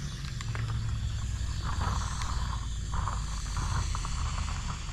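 Water from a hose splashing onto muddy live crawfish in a container, rinsing the mud off them while they are purged. Scattered small clicks come through over a steady low rumble.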